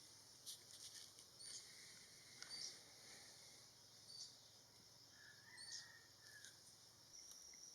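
Faint bird calls: a small bird's short, high chirps repeating about every second or so, with a softer, lower call near the end, over quiet outdoor background.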